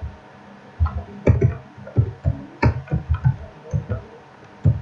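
Computer keyboard keys being typed on in an irregular run of clicks and thumps, about a dozen keystrokes, entering text.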